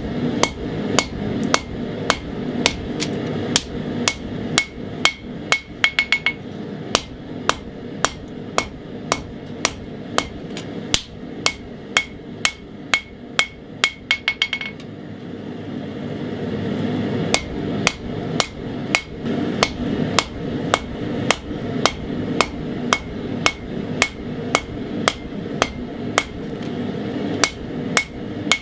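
Hand hammer forging hot 80CrV2 steel on an anvil to draw out the point of a bowie knife blade. The blows come about two a second, many with a ringing note, with quick runs of light taps twice and a short pause past the middle, over a steady background rumble.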